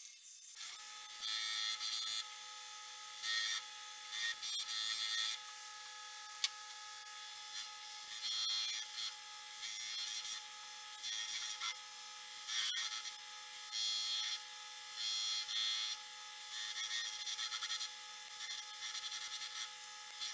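Bench power tools running with a steady motor hum as a small metal tsuba (sword guard) blank is cut on a bandsaw and shaped on a belt grinder. Short bursts of grinding hiss come again and again each time the metal is pressed to the blade or belt, with one sharp click partway through.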